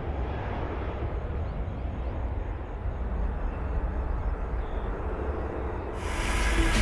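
Steady rumble of jet aircraft noise across an airfield apron. About six seconds in it grows louder and a hiss joins it.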